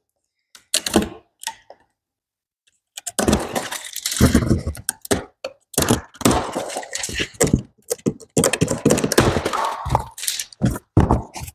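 Large cardboard shipping box being opened by hand: irregular tearing, crackling and thunking of cardboard and packing tape, starting about three seconds in.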